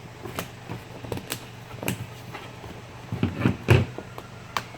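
Handling noise: irregular light clicks and knocks from a tank outlet fitting and its gasket being worked through the bag material, with a short, louder cluster a little past three seconds in.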